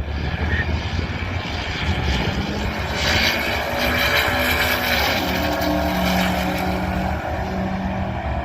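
A car's engine under hard acceleration on a drag strip. The engine note climbs in pitch, is loudest about three seconds in, and steps to a new pitch about five seconds in, as at a gear change.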